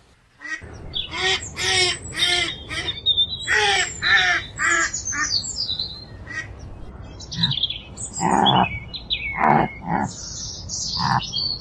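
Birds calling: runs of short, harsh calls repeated about twice a second, with higher chirping above them.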